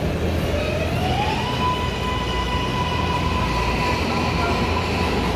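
MARTA Hitachi CQ311 subway railcar in motion over a low rumble. A thin electric whine rises in pitch over the first second and a half, then holds at one steady note.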